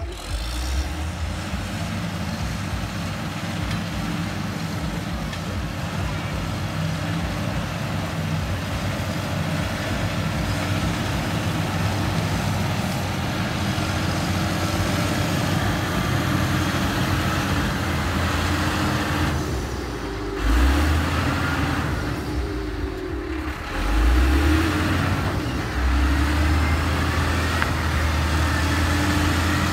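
Motor grader's diesel engine running as the grader drives through mud, a steady low drone that jumps louder in sudden surges three times in the last third.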